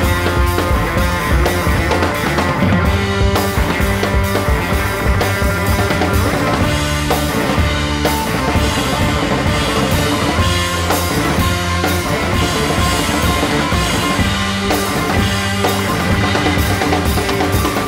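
Background rock music with drum kit and guitar and a steady beat.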